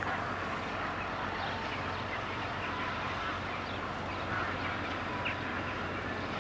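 A 450-horsepower LDH45 diesel-hydraulic shunting locomotive runs steadily at a distance as it moves freight cars, giving a steady low hum under an outdoor hiss. A few short, faint calls sound over it.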